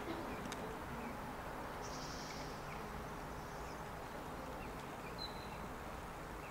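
Steady outdoor background noise with a few faint, brief high chirps, one about 2 seconds in and a thin one about 5 seconds in.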